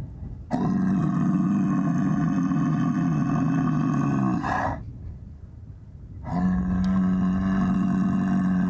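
Cow growling with two long, deep calls, the second starting about six seconds in. It is the bull-like growl with which she guards her herd.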